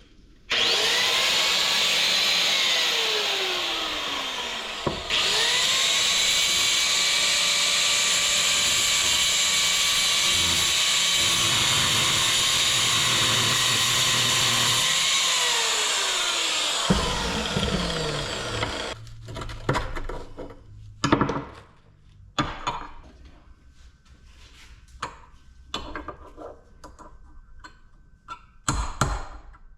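Electric power tool on steel, running in two long bursts, each winding down with a falling whine as it is let off, followed by scattered knocks and taps on metal as a piece of the compressor is knocked loose.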